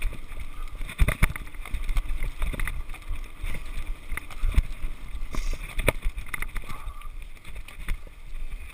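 A mountain bike riding down a rough gravel forest trail: tyre noise on the loose surface under a low rumble, with frequent irregular knocks and rattles as the bike jolts over stones, a few of them sharper, about a second in and just before six seconds.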